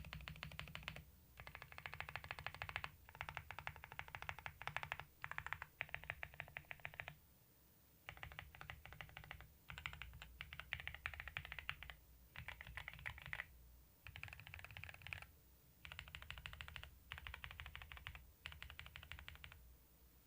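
Typing on a Zuoya GMK87 gasket-mount TKL mechanical keyboard with factory-lubed GGBOY Matcha Green linear switches and PBT keycaps. The keystrokes come in fast runs of one to two seconds with short pauses between them, and the typing stops shortly before the end.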